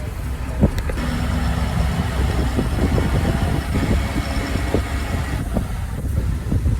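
Heavy vehicle engine running steadily, with a low hum and scattered small knocks.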